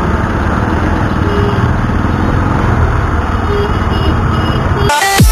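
Motorcycle engine running amid city traffic noise, picked up by a camera mounted on the bike. Near the end it cuts off abruptly as electronic music starts.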